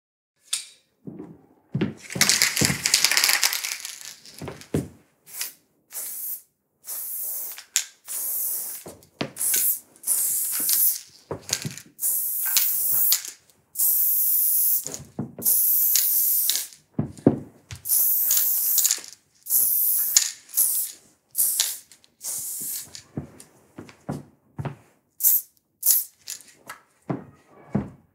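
Aerosol spray-paint can hissing in many short bursts, one to two seconds each, one per stroke as the letters are sprayed onto the canvas, with a few low thumps between strokes.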